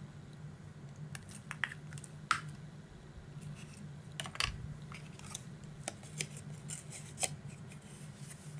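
Paper and cardstock being handled and pressed: scattered light taps, scrapes and rustles of a small paper pocket against the cutting mat, over a faint steady low hum.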